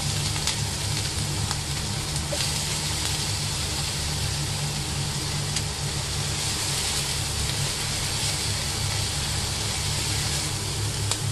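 Diced onion, ginger and garlic sizzling as they fry in a wok, a steady frying hiss with a few faint ticks of the stirring utensil. A constant low hum runs underneath.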